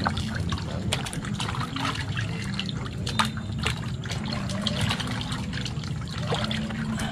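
Water splashing and trickling as pieces of eel are rinsed and rubbed by hand in water, washing off the salt and slime, with many small irregular splashes and drips. A steady low hum runs underneath.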